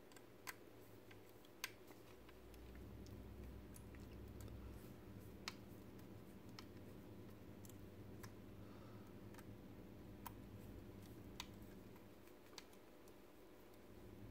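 Small screwdriver tightening screws that fix a robot servo motor into a plastic leg housing: faint, scattered clicks, roughly one every second or two, over a low steady hum.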